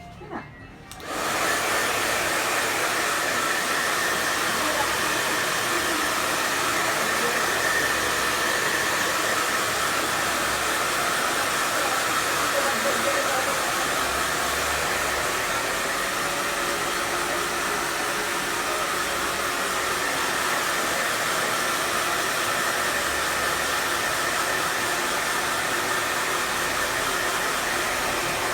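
Handheld hair dryer switched on about a second in and then running steadily, blow-drying hair.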